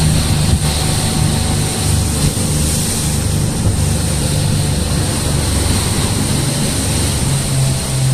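Small motorboat under way: its engine runs steadily with a low drone, mixed with rushing wind on the microphone and water splashing along the hull.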